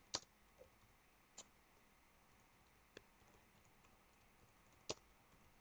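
Near silence broken by four faint, single clicks spaced a second or more apart.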